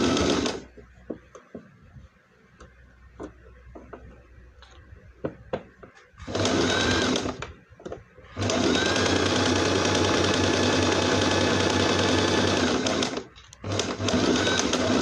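Electric domestic sewing machine stitching in stops and starts: a short run at the start, another about six seconds in, a long steady run of about five seconds from eight seconds in, and short bursts near the end. In the pauses, small clicks as the fabric is handled and repositioned.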